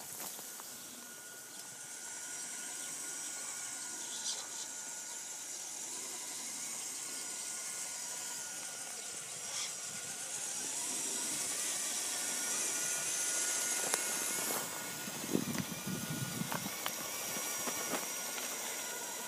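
Electric drive of a radio-controlled Tatra 148 dump truck model running, a steady motor-and-gearbox whine over a high hiss. Its tyres crackle over loose gravel about 15 to 17 seconds in.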